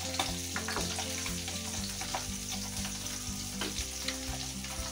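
Ground spices (turmeric, chilli and cumin powder) frying in hot oil in a kadai: a steady sizzle, with a few clicks of the steel spoon against the pan.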